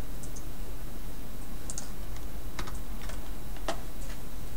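A few scattered clicks from a computer mouse and keyboard, over a steady low hum.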